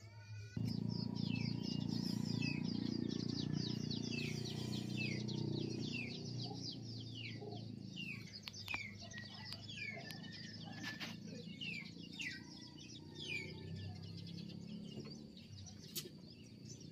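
Birds chirping: a long run of quick, downward-sliding chirps, several a second, over a steady low rumble that starts suddenly about half a second in.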